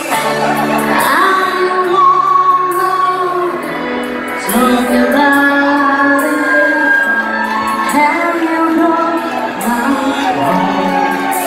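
Live band playing with a lead singer on microphone, amplified through a PA; the voice holds long notes and slides between them.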